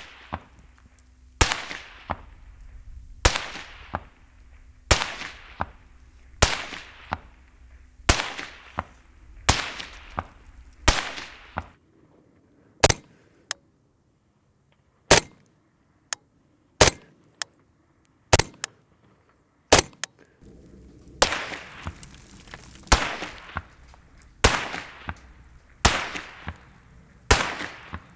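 Rifle rounds (.223 and .308) fired from long range at a concrete wall, heard from near the wall: a steady string of sharp supersonic cracks about every second and a half, each trailing off in a rolling echo. The bullets' crack as they pass is heard more than the thud of the impact on the concrete. In the middle, the cracks come singly and cleaner, with little echo between them.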